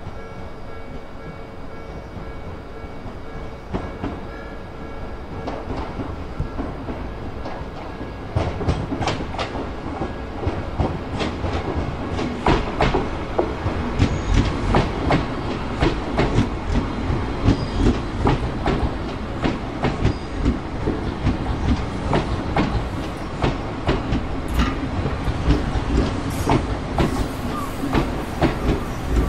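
Unpowered Odakyu 5000-series electric train cars rolling past at slow speed, hauled on a delivery run, their wheels clacking rhythmically over rail joints. The clatter grows louder and denser from about eight seconds in as the cars come close.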